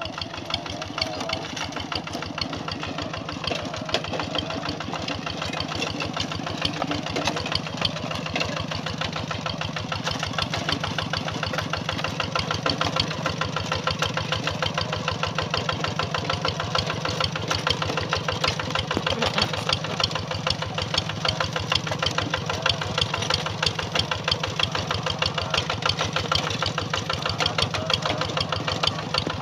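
Kubota G1000 hand tractor's single-cylinder diesel engine running with a rapid, steady knock. It grows louder from about halfway through as the tractor drives closer.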